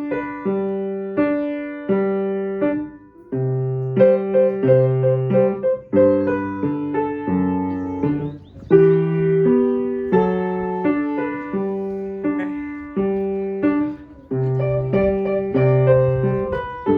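Background piano music: chords and melody notes struck in an even rhythm, each fading after it is struck.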